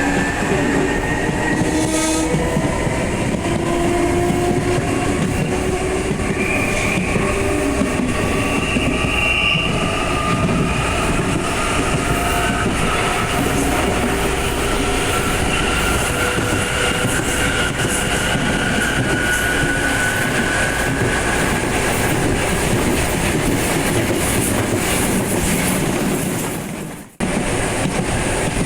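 CPTM Série 2000 electric train's VVVF inverter traction motors whining ("roncando") as it accelerates, with several tones rising slowly in pitch over the rumble and clatter of wheels on the rails. Near the end the sound drops out abruptly for a moment.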